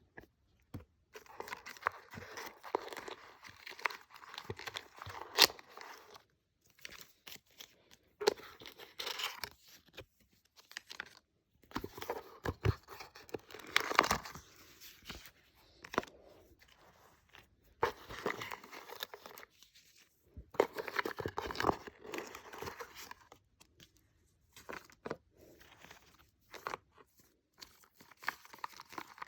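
Packaging being handled and torn open: several stretches of rustling, crinkling and tearing, each a few seconds long, with scattered clicks and taps between them.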